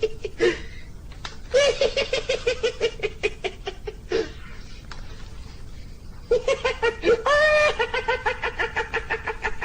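A person laughing in two long bouts of quick, rhythmic ha-ha pulses, about six a second, with a short drawn-out note early in the second bout.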